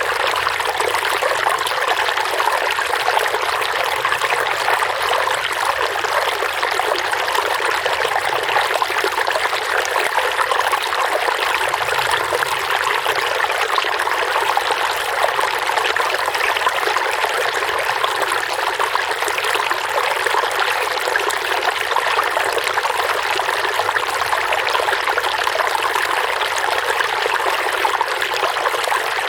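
Water running and trickling in a steady stream, a constant splashing rush with no change.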